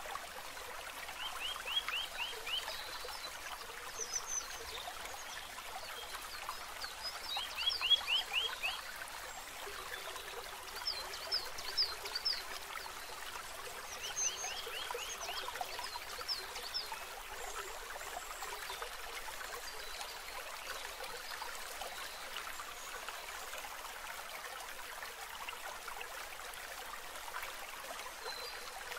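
Steady trickling water with short chirping trills of a few quick notes each, repeating every few seconds and mostly in the first half.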